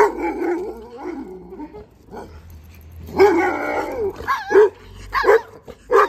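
Dogs barking at each other through a fence, a leashed chihuahua and a large dog behind it. The barks come in bursts: one at the start, a longer run about three seconds in, and several quick short barks near the end.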